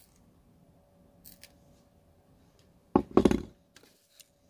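Diagonal cutters working on a thin wire: a couple of faint clicks, then about three seconds in a loud clunk and short rattle as the metal cutters are put down, with a few small clicks after.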